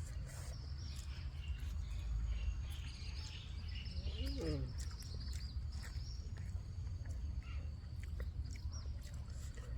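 Small birds chirping, a quick run of high repeated chirps thickest around the middle, over a steady low rumble.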